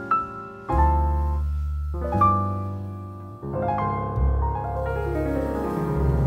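Background piano music: single notes struck and left to ring, with a falling run of notes in the second half.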